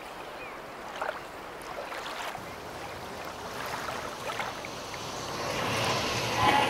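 Waterfront ambience: a steady wash of water and wind, swelling near the end as street traffic noise comes in.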